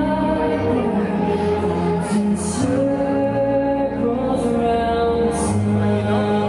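Orchestral music with a choir singing long held notes over a low bass line, the soundtrack of a fireworks show.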